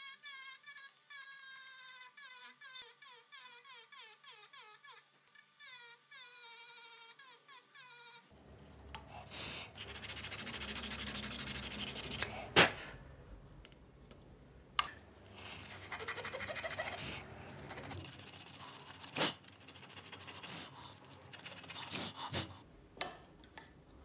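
Background music for the first eight seconds or so. Then a flat abrasive file is drawn by hand over the walnut scales of a pocket knife held in a vise, in long rubbing passes, with several sharp clicks between them, the loudest about twelve and a half seconds in.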